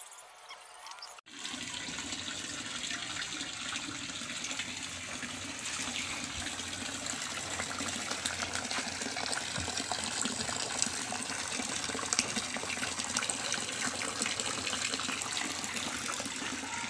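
Water from a solar-powered water pump pouring steadily out of a PVC outlet pipe and splashing into a plastic basin, starting suddenly about a second in.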